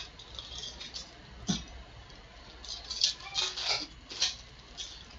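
Foil wrapper of a 2017 Topps baseball card pack crinkling and tearing as it is opened by hand, in short irregular crackles.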